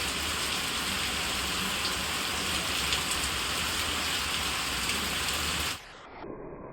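Steady monsoon rain falling in a dense, even hiss. It cuts off abruptly near the end, leaving a much quieter, muffled sound.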